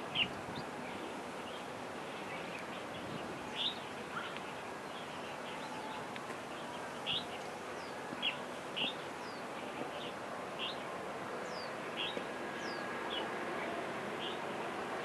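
Birds chirping in short, scattered calls, roughly one every second or so, a few of them quick downward-sliding whistles, over a steady background hiss.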